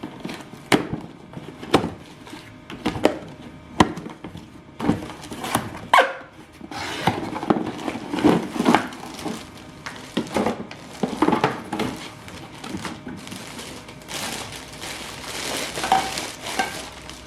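Kitchen handling sounds: a string of sharp knocks and clinks of dishes and utensils being picked up and set down, with a steady hiss joining under them from about seven seconds in.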